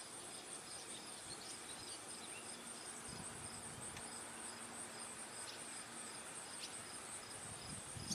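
Insects chirping, likely crickets: a steady high pulsing trill with a second, lower chirp repeating about twice a second, and a few faint short high chips scattered through.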